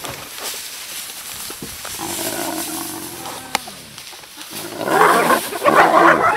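Lions and hyenas in a scuffle: a low growl in the middle, then about five seconds in a loud burst of many rising-and-falling yelping, cackling calls.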